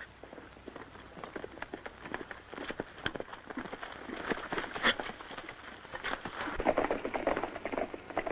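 Horses' hooves galloping, a fast patter of hoofbeats that grows steadily louder as the riders approach.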